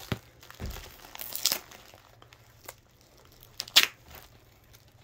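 Clear plastic wrap of a vacuum-packed mattress crinkling and tearing as a knife slits it open, in scattered short crackles. A soft low thump comes under a second in, and the sharpest crackle comes just before four seconds in.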